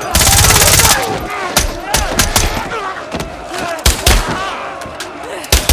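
A loud burst of rapid automatic gunfire, under a second long, over a crowd of men shouting. It is followed by several separate sharp hits as the brawl goes on.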